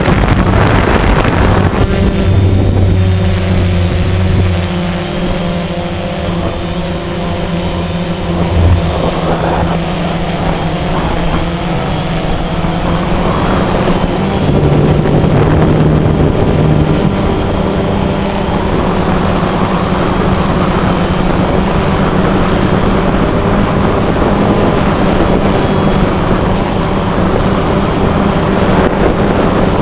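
A DJI Phantom quadcopter's motors and propellers humming, heard up close from the camera on the drone, with rushing prop wash. The hum changes pitch a few times as the motor speeds shift, under a steady high-pitched whine.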